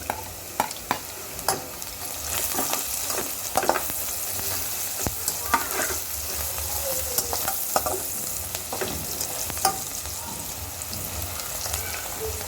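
Onions, ginger and garlic frying in hot oil in a pot, a steady sizzle that grows louder about two seconds in, with the clicks and scrapes of a spoon stirring against the pot.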